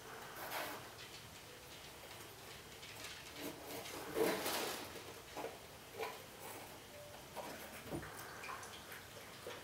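Cats moving about inside cardboard boxes: faint, scattered scratches and taps on the cardboard, with a louder rustle about four seconds in.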